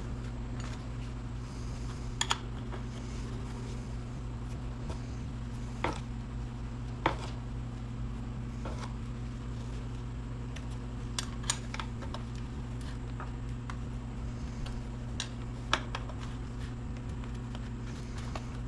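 Scattered light metallic clicks and knocks, about a dozen spread irregularly, from tightening down the new 18-inch bar and chain on a Husqvarna 435 chainsaw. A steady low hum runs underneath.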